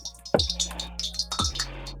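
Electronic background music with a deep kick drum and held bass note roughly once a second, and crisp high percussion ticks over it.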